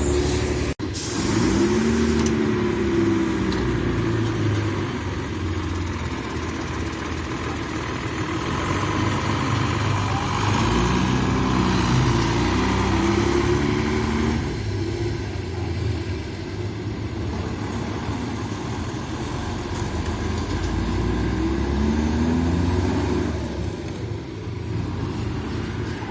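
Mercedes-Benz OH-1420 bus's diesel engine running, its pitch rising and falling in three swells as it is revved and eased off.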